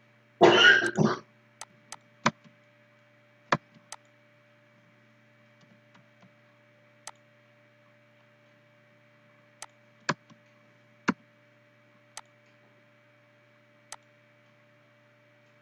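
Computer mouse buttons clicking, single sharp clicks spaced irregularly a second or more apart, over a steady electrical hum.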